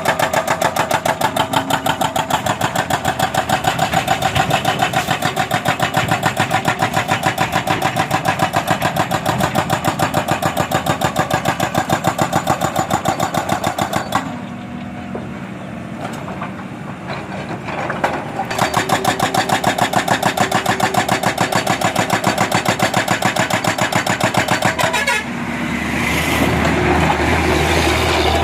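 Excavator-mounted hydraulic breaker hammering rapidly on road surface, a fast, even run of blows over the excavator's engine. The hammering stops for a few seconds about halfway, leaving just the engine running, then resumes. It stops again near the end, where a steady, louder engine sound takes over.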